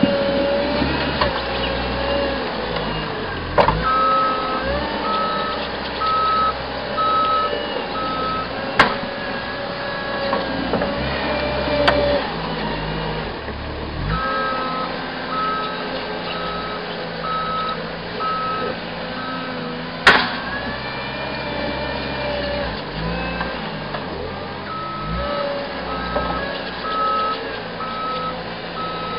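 Caterpillar 257B skid-steer loader's diesel engine running and changing speed as it works, with its backup alarm beeping about once a second in three spells while it reverses. A few sharp knocks sound along the way.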